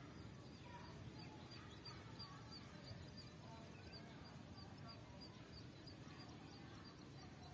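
Faint outdoor ambience: a low wind rumble with scattered distant bird chirps, and a faint high chirp repeating about twice a second.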